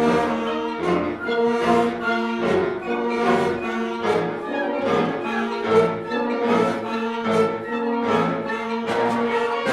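Senior concert band playing a piece: sustained chords with note changes at a steady pulse.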